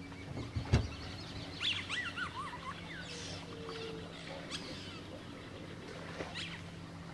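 Birds calling with short chirps and wavering, falling whistles over a steady low hum, with one sharp thump just under a second in.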